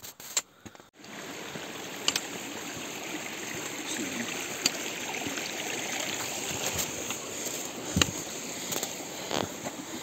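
Running water of a mountain stream rushing steadily, starting about a second in, with the occasional sharp click of hiking boots and a trekking pole on rock.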